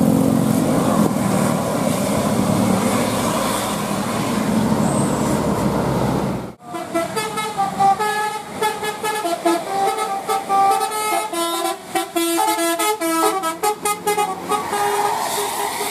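Engine and traffic noise, then a sudden cut about six and a half seconds in to a bus's multi-tone 'telolet' air horn playing a quick tune of changing notes for about eight seconds.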